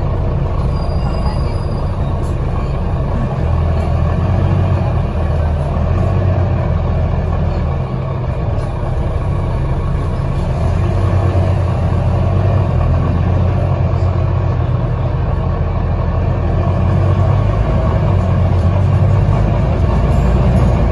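Engine and running noise of a Volvo double-decker bus on the move, heard from inside the upper deck: a steady low rumble that grows a little louder near the end.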